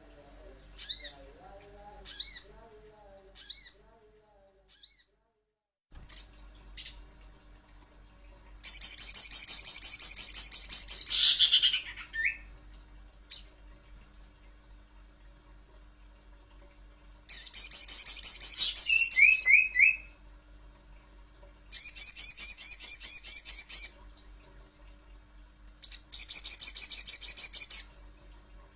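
Songbirds of the kinds called sogon and sogok ontong singing: short high chirps over the first several seconds, then four long, rapid, very high trills of two to three seconds each, two of them ending in a few falling notes. A faint steady hum runs underneath.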